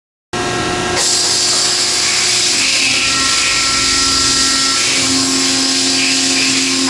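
Hybrid CNC tube bender running while it bends mild steel rectangular tubing: a loud, steady machine whine and hiss that starts abruptly a moment in, with a few faint steady tones coming and going.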